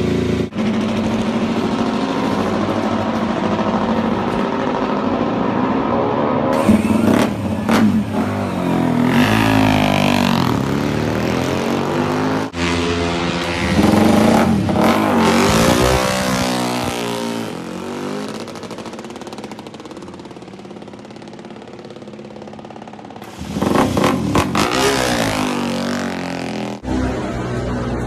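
Moto3 race bikes' 250cc single-cylinder four-stroke engines idling and being revved, the pitch sweeping up and falling back in several blips, with abrupt changes where clips are cut together.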